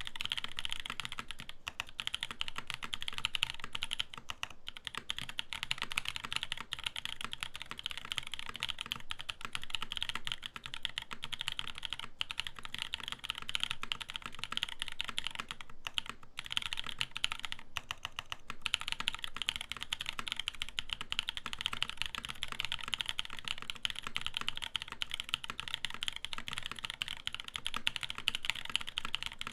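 Fast continuous typing on a KMG TKL mechanical keyboard with an aluminium plate, Cherry Top Zykos switches and GMK Modo Light keycaps, a dense stream of key clacks with brief pauses.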